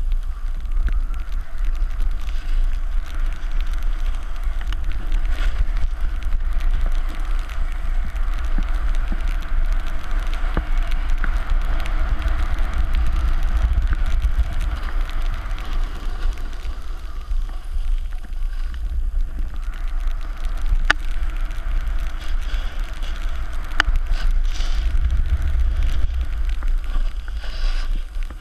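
Wind rumbling on a pole-mounted GoPro Hero 3's microphone during a snowboard descent, over the hiss and scrape of the snowboard's edges on snow, which swells and fades with the turns. A few sharp clicks stand out.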